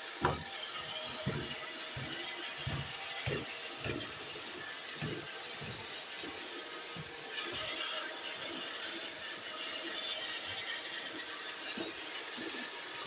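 Roomba robot vacuum running: a steady high whir from its motor and brushes, with irregular low knocks and clicks as it moves and bumps about.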